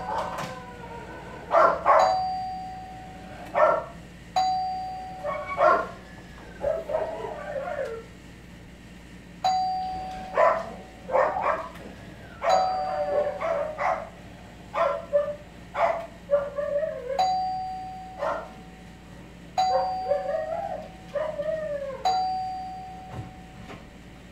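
Doorbell chime rung over and over, about eight times, each ring a single steady tone that fades away over about a second. Between the rings a dog barks in short bursts, reacting to the doorbell.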